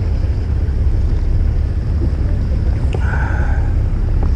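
Steady low rumble of a fishing boat's engine running, with wind rushing over the microphone.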